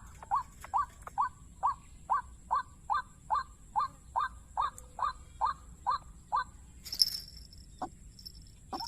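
Waterhen calling: a steady run of short, hooked notes at about three a second, which stops about six and a half seconds in. A brief rustling burst follows about seven seconds in.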